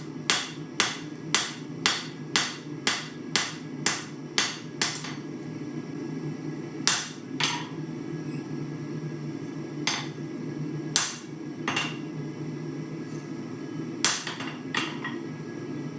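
Hand hammer striking a hot steel knife blank, cut from an old farrier's rasp, on an anvil to square and shape it. A steady run of about two blows a second for the first five seconds is followed by scattered single blows. A steady low rush from the forge runs underneath.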